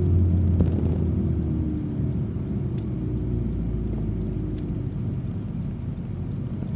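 Honda Civic Type R FK8's turbocharged 2.0-litre four-cylinder engine running through its exhaust, its pitch easing gently downward. A deep low drone fades out about two seconds in.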